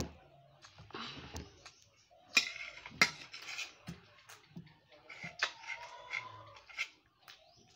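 Metal spoon clinking and scraping on a ceramic plate while rice is scooped up, a series of sharp clicks and short scrapes.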